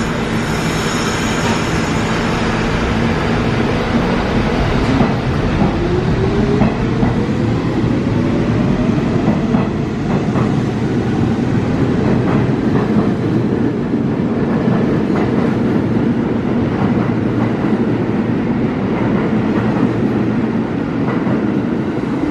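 R68 subway train pulling out of the station: its steady hum gives way about four seconds in to a traction-motor whine rising in pitch as it accelerates, with wheels clicking over the rail joints as the cars go by.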